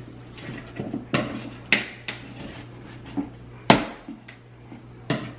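Pry bar levering the glued lid of a wooden crate: about six sharp cracks and knocks of metal on wood, spread out, the loudest about two-thirds of the way through.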